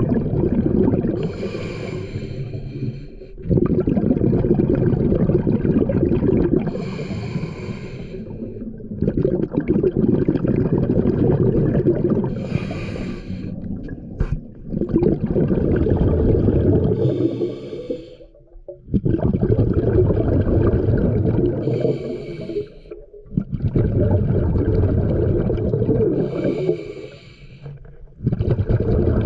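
Scuba regulator breathing heard underwater. About every five seconds there is a short hiss as the diver breathes in, followed by a long rumble of exhaust bubbles as he breathes out, six breaths in all.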